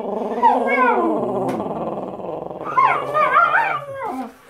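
Small long-haired dog giving a long, drawn-out howling moan that dips lower about a second in, then breaks into higher wavering cries near the end; the owner puts it down to the dog having had a dream.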